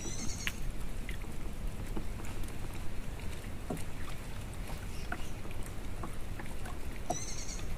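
Small wooden boat being paddled on a river: a steady low rumble of water against the hull with scattered small knocks and drips from the paddle. Two short spells of high chirps, one just after the start and one near the end.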